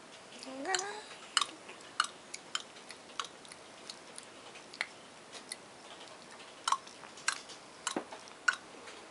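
Sharp mouth clicks, about fifteen at irregular spacing. A short rising voice sound comes about half a second in.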